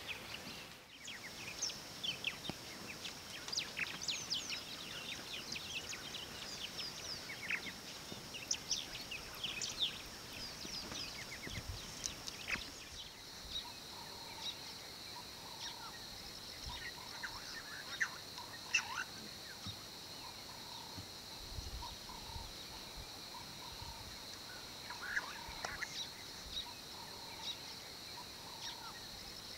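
Bush ambience of many wild birds chirping and calling over a steady high-pitched buzz. The chirping is dense in the first half and thins after a change in the scene about 13 seconds in. After that the buzz sits a little lower, and a lower, drawn-out call comes and goes.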